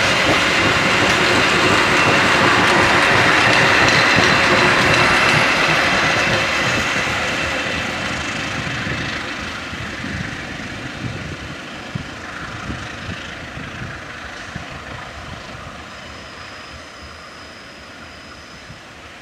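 Passenger train coaches rolling along the rails, their wheel noise fading steadily as the train draws away.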